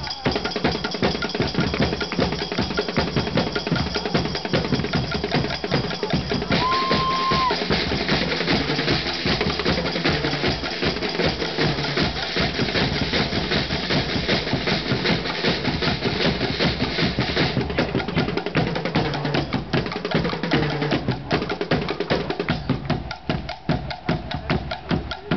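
Guggenmusik drum section playing together: bass drums, marching snare drums and a drum kit with cymbals beating out a fast, steady rhythm. The beat becomes sparser near the end.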